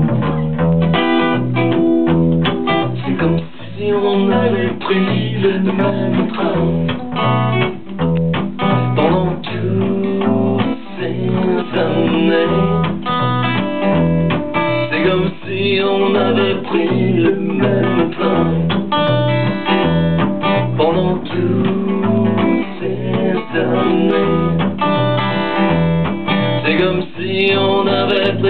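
Acoustic guitar and electric bass guitar playing a song live together, with a man's voice singing in places.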